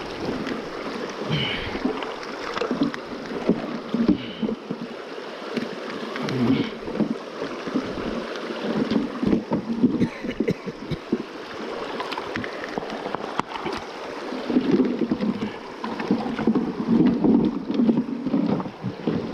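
River water sloshing and splashing close to the microphone, in uneven surges.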